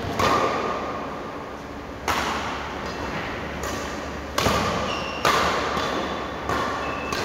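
Badminton rackets striking the shuttlecock in a doubles rally: about five sharp smacks a second or two apart, each ringing in the hall, with short shoe squeaks on the wooden floor.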